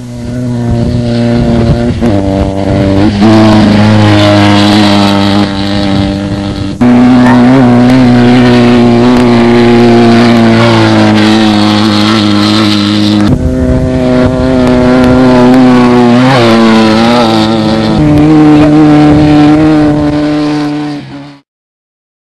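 Desert race buggy engines running hard at high, held revs, with brief dips and rises in pitch. The pitch jumps abruptly a few times, and the sound cuts off suddenly about a second before the end.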